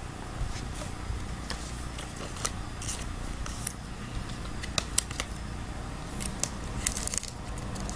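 Trading cards being handled and moved about: scattered light clicks and rustles, busier near the end.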